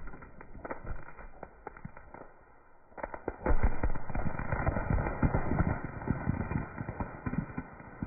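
Firework going off: scattered crackles, then a sudden loud burst about three seconds in, followed by dense crackling and popping that thins out toward the end.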